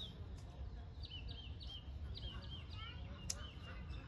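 A songbird chirping a quick run of short, repeated up-and-down notes over a low outdoor rumble, with a single sharp snip of scissors cutting herb stems about three seconds in.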